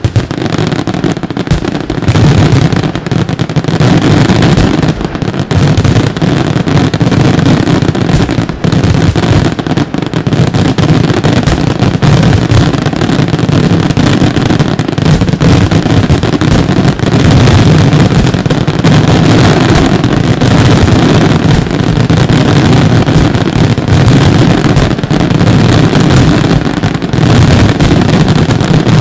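A dense fireworks barrage: aerial shells and low-fired effects bursting so rapidly that the reports merge into one continuous, loud, deep rumble with no breaks.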